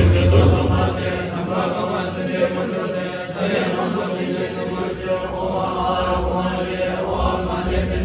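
Group of Tibetan Buddhist monks chanting a puja liturgy in unison: continuous, steady recitation with no breaks.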